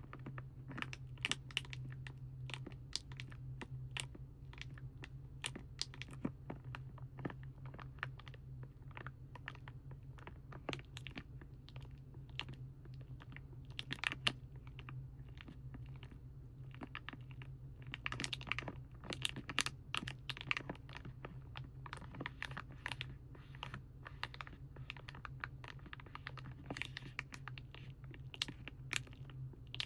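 Fingers tapping and clicking on plastic paint packaging: quick, irregular taps that bunch into busy runs, over a steady low hum.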